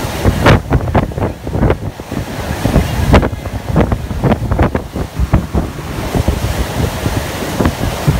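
Wind buffeting the phone's microphone in irregular gusts on the deck of a moving ship, over the rushing of the ship's churning wake.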